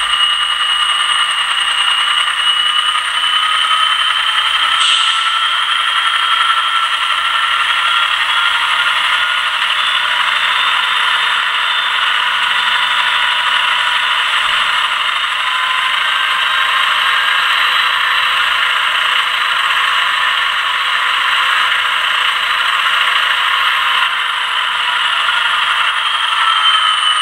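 Digitally sampled diesel locomotive engine sound from an ESU sound decoder, played through the small speaker inside an HO-scale GP30 model. The engine note revs up over the first ten seconds or so, holds steady, then winds back down near the end. It has a hissing, rattling texture with no deep bass.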